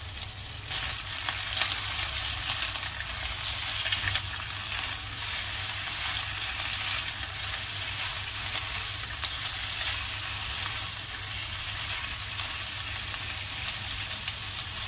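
Beef meatballs sizzling steadily as they fry in a nonstick wok, with scattered crackles and pops. A spatula stirs and turns them in the pan.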